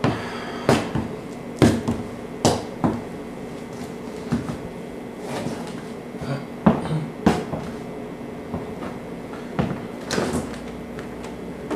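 A series of irregular knocks and clunks, about a dozen sharp hits spaced unevenly.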